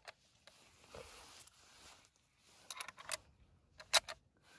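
Lee-Enfield No.4 Mk2 rifle being loaded by hand, .303 British rounds pressed one at a time into its magazine: a cluster of metallic clicks about three seconds in and a sharp click at about four seconds, over soft rustling.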